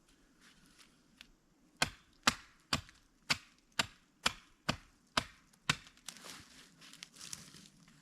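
Wood being chopped: nine sharp blows about two a second, then rustling.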